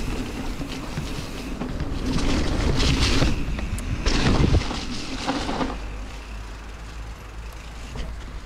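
Rockrider AM 100 S mountain bike being ridden down a trail, heard from an action camera: wind on the microphone and tyres rolling over the ground, with louder, rougher passages about two to three seconds in and again around four to five seconds in.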